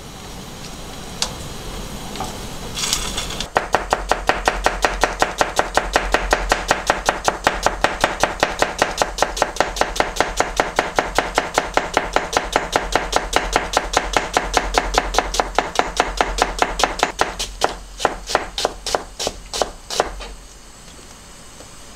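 Kitchen knife slicing an onion on a plastic cutting board: a fast, even run of chops about five a second, slowing to separate cuts near the end.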